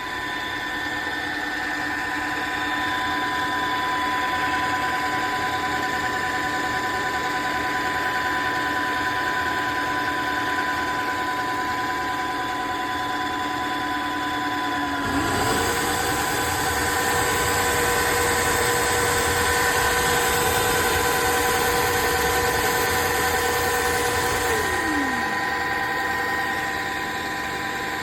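Tineco iFLOOR 3 Breeze cordless wet-dry floor cleaner running with a steady motor whine. About halfway through, one tone climbs higher and a hiss grows louder for about ten seconds, then both drop back.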